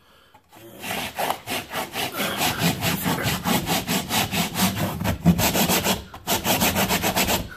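Hand sanding block scrubbed rapidly back and forth over a painted wall at about four strokes a second, pausing briefly about six seconds in. It is knocking down an old paint drip to level it.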